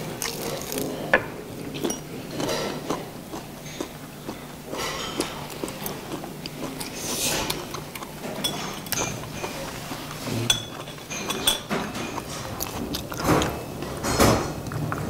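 Metal chopsticks clicking and clinking against plates and bowls during a meal, with chewing of fried seafood; the loudest stretch of chewing comes near the end.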